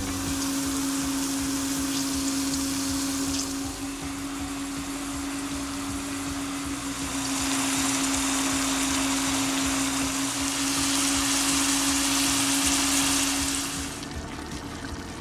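Mutton pieces sizzling as they fry in a pressure cooker pot, over a steady low hum. The sizzle grows louder about halfway through, then drops off near the end.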